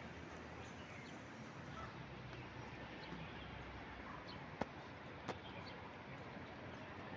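Steady outdoor background noise of an open urban terrace, with two sharp clicks a little over halfway through, less than a second apart.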